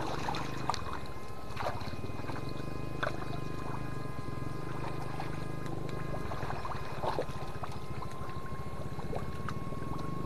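Electric fish-shocker buzzing steadily while its ring electrode is held in the water: a fast pulsing hum with several thin high whining tones over it. A few faint splashes come now and then.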